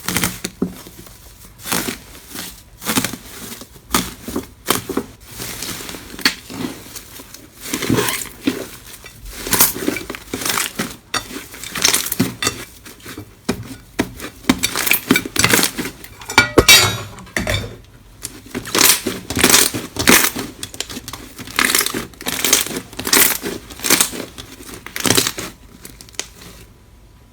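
Slime being squeezed and pressed by hand, giving irregular crackling pops, with a dense run of crackling about halfway through.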